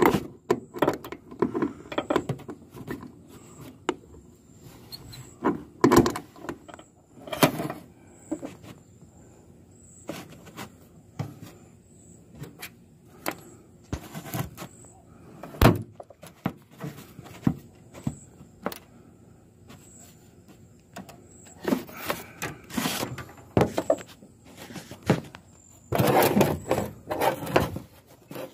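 Irregular knocks, scrapes and squeaks of hands and tools working an old boat seat loose from its metal mounting, with a dense run of strokes near the end as a socket ratchet works a seat bolt.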